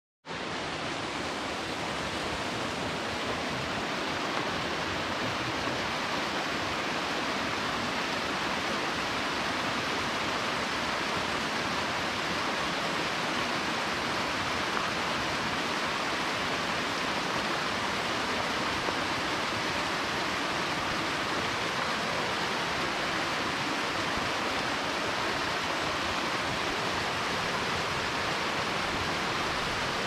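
Small waterfall splashing down a rocky bank: a steady rush of falling water.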